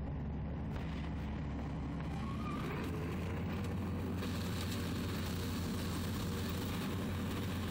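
Combine harvester running steadily: a low engine rumble, with a brighter machinery hiss joining about four seconds in.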